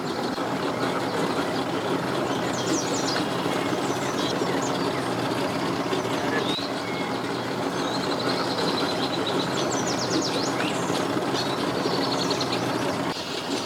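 An engine running steadily with a low, even hum, while birds chirp a few times in quick trills.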